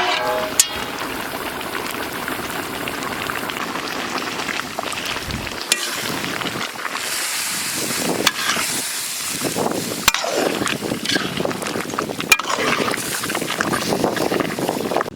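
Food sizzling as it fries in a pan, a steady hiss broken by a few sharp pops.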